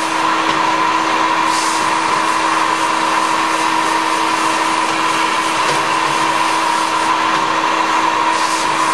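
Automatic stand-up pouch fill-and-seal machine with an auger powder filler running: a steady mechanical whir with a constant hum. Two short high hisses come through, about one and a half seconds in and again near the end.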